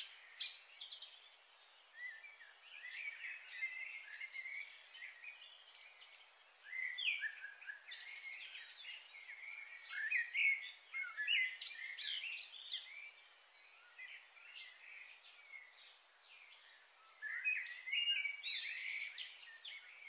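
Birds chirping and singing in several bursts of short, quick calls, over a faint steady outdoor hiss.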